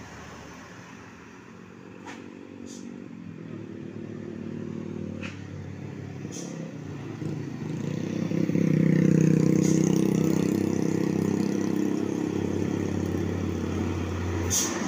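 Traffic engine noise: a diesel cargo truck's engine grows louder as it approaches and comes alongside near the end, mixed with car and motorcycle engines. The noise swells about halfway through, with a few sharp clicks scattered through it.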